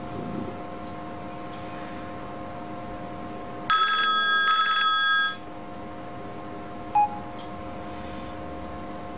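A mobile phone's text-message alert rings out for about a second and a half, several high tones at once, as the text message goes through. A short beep follows about two seconds later over a faint steady electrical hum.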